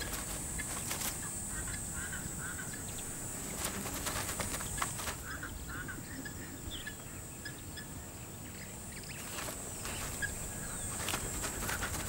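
Dry savannah ambience: a steady high hiss with many short, high chirping calls scattered through it, and a few soft scratches and clicks of dirt as dwarf mongooses dig into a termite mound.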